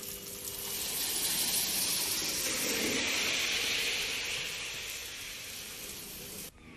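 Rain falling, a steady hiss that swells about a second in, then fades and cuts off abruptly shortly before the end.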